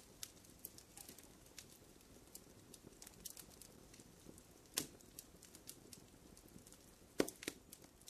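Faint campfire crackling: scattered small pops and ticks over a soft hiss, with louder snaps about five seconds in and again near the end.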